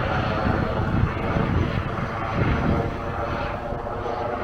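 Police helicopter circling overhead, its engine and rotors giving a steady drone.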